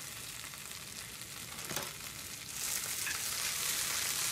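Leafy greens stir-frying in oil in a frying pan: a steady sizzle that grows louder about two and a half seconds in as they are stirred with chopsticks, with a light tap shortly before.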